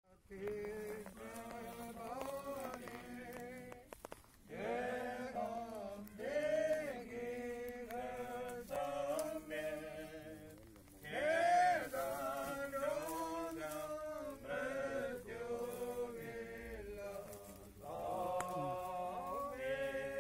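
A group of mourners singing a funeral hymn, unaccompanied, in long held phrases with short breaks between the lines.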